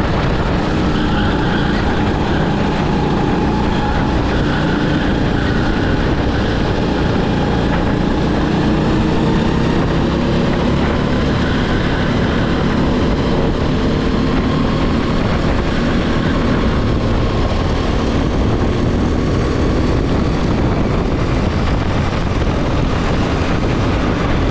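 Racing kart engine heard on board at speed, its note gliding up and down with the throttle through the corners, over a steady rush of wind and track noise.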